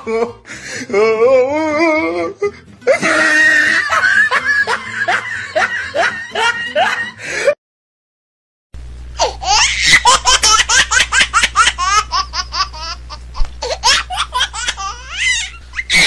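Loud bouts of laughter in quick repeated pulses, one long run, then a break of about a second, then another run of rapid laughing over a steady low hum.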